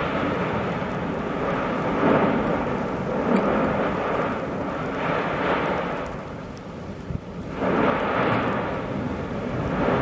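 Cumbre Vieja volcano erupting: a continuous rumble that swells in repeated surges every second or two, easing briefly a little past the middle before building again.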